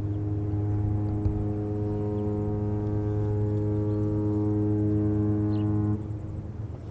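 A departing cruise ship's horn sounding one long, steady, deep blast that cuts off suddenly about six seconds in.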